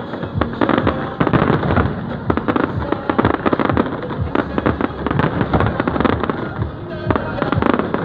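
Fireworks display: a rapid, unbroken stream of bangs and crackling pops from many shells bursting.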